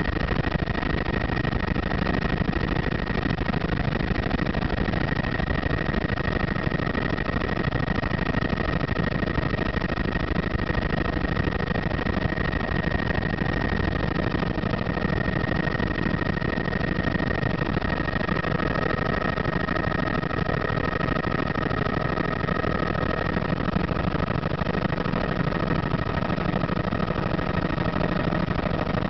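Helicopter in flight, heard from inside the cabin: a steady engine and rotor drone with a thin, steady high whine over it.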